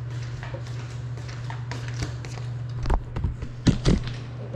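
Handling knocks of a small FPV drone being picked up and set down on a tiled floor: scattered light taps, then several loud knocks about three to four seconds in, over a steady low hum.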